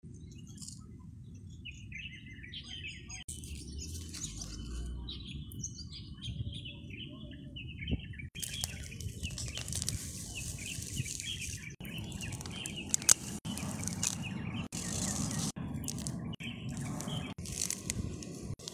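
Small birds chirping in quick short notes; from about eight seconds in, a metal blade digs and scrapes into dry, crumbly soil to lift garlic bulbs, in rough scraping strokes with sharp clicks, the sound cutting in and out abruptly.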